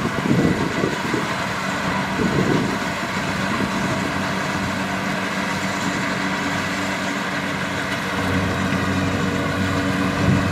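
Kubota DC-70 Plus combine harvester's diesel engine running steadily. There are brief louder rattling surges about half a second and two seconds in, and the engine note shifts slightly around four and eight seconds in.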